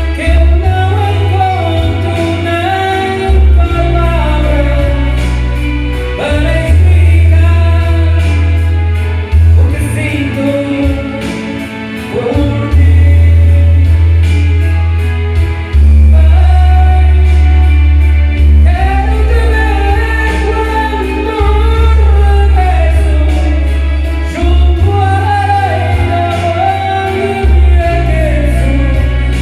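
A singer singing karaoke over a backing track with a heavy bass line that changes note every second or two.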